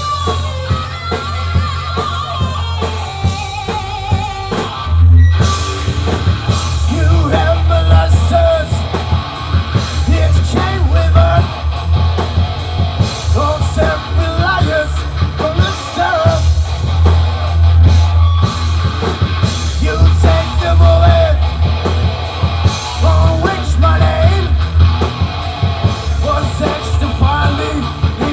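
A live heavy metal band of electric guitar, bass guitar and drum kit playing. For the first few seconds the guitar plays alone, then the full band comes in with the drums about five seconds in, and there is sung vocals over it.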